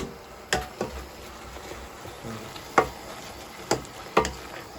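A cooking utensil knocking against a pan about six times while the cooked mushrooms and spinach are stirred, over a faint sizzle.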